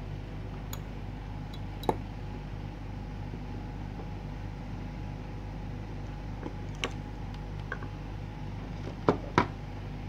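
Handling clicks and knocks as a small motor, its alligator-clip leads and an adjustable wrench are moved about on a wooden table: one knock about two seconds in, another near seven seconds, and two louder ones close together near the end, over a steady low hum.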